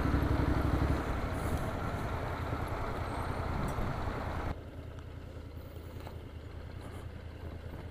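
Motorcycle engine and road noise while riding in city traffic, dropping suddenly about four and a half seconds in to a quieter, steady low rumble.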